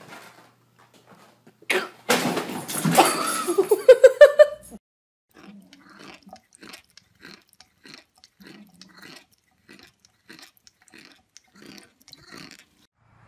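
A cat chewing close to the microphone: a long run of short, quiet crunching clicks, about two or three a second. Before the chewing, a loud burst of noise lasting a few seconds ends in a rising cry.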